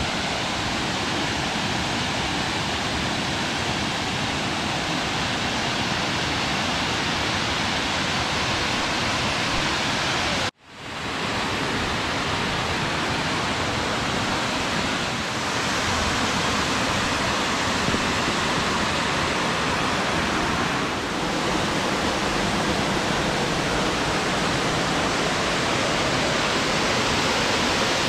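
Steady rush of a waterfall, twin falls pouring into a deep pool. The sound cuts out for a moment about ten seconds in and fades back up.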